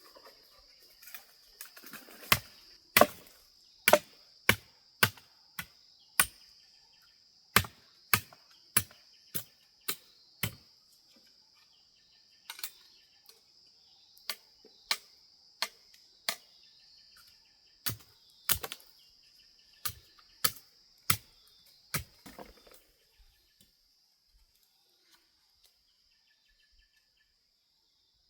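Repeated sharp chopping strikes, about one or two a second at an uneven pace, stopping about 22 seconds in. A steady high-pitched hum runs beneath them.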